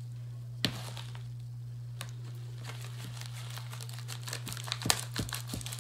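Plastic packaging crinkling as it is handled and cut open with scissors: a single sharp click a little over half a second in, then a cluster of clicks and snips near the end.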